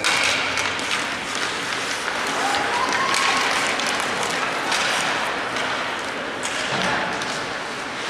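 A crowd of spectators clapping and cheering, with scattered shouts over a steady wash of crowd noise.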